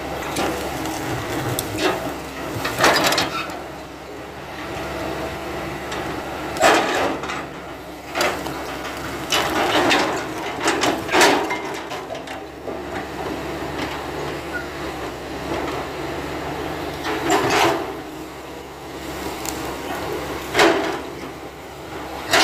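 Hitachi hydraulic excavator's diesel engine running steadily while its bucket strikes and crushes a felled coconut palm trunk, giving sharp knocks and wood cracking about half a dozen times.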